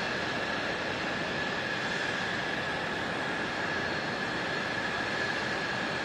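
Jet engines running at idle on a flight line: a steady high whine over a constant rushing noise.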